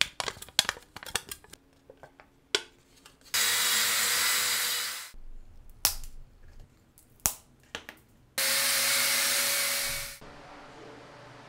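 Quick sharp clicks and crinkles of a thin aluminium soda can being pressed by hand. Then a small electric tool runs twice for about two seconds each with a steady hum, starting abruptly and winding down, with a few single sharp snaps in between.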